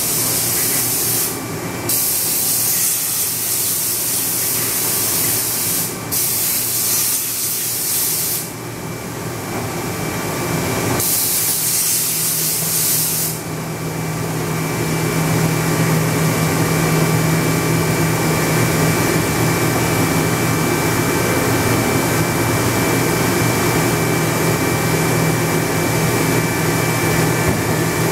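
Mori Seiki NH5000 horizontal machining center running. Over roughly the first half there are four spells of loud hissing with short breaks, then a steady machine hum with a low tone and a few fainter steady tones takes over.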